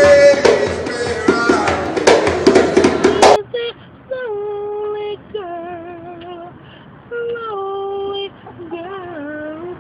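For about three seconds, a man sings loudly over music with percussive hits, and this cuts off abruptly. A man then sings unaccompanied in a high voice, holding long wavering notes in short phrases with brief pauses between them.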